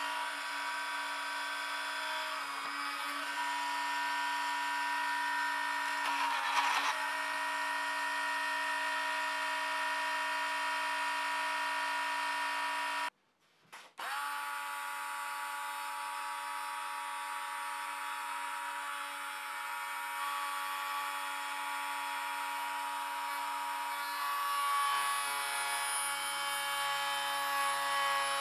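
Small electric drill with a fine bit running at a steady high-pitched whine while drilling component holes through an etched copper circuit board. It cuts out briefly about halfway through, then starts up again.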